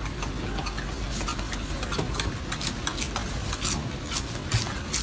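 Irregular crisp crackling and rustling of leafy greens as a golden snub-nosed monkey handles and chews them.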